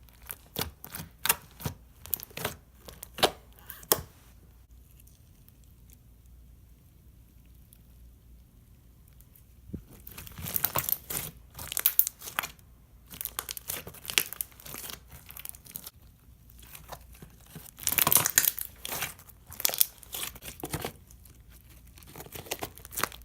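Foam bead slime being squished and stretched by hand, giving runs of sharp crackling and clicking. The crackling stops for about six seconds after the first four seconds, then starts again and grows busier.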